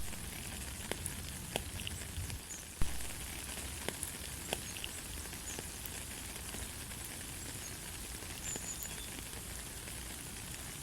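Steady rain falling, with scattered single drops ticking on a surface. There is one louder knock about three seconds in, and a couple of brief faint high chirps near the end.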